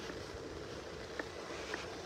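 Small waves lapping and washing up a sandy beach, a steady soft hiss, with two faint ticks past the middle.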